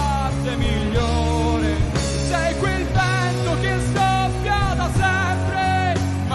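Live pop-rock band playing a song with a male lead singer: electric guitars, bass and drums under a sung melody.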